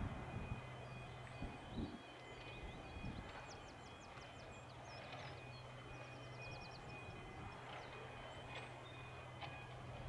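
Faint, steady hum of a John Deere tractor's diesel engine working while it pulls a five-furrow plough through the soil. Quick runs of high bird chirps come in about a third of the way through and again past the middle.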